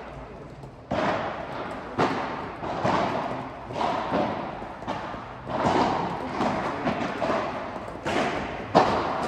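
Padel rally: the ball is struck back and forth with paddles and bounces off the court, a sharp hit about once a second, each ringing on in the echo of a large indoor hall.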